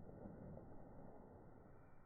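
Near silence: a faint low hiss of background noise, slowly fading.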